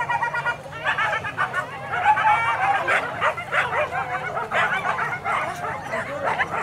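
A pack of boar-hunting dogs yelping and baying on the chase. Many high calls overlap, with no pause.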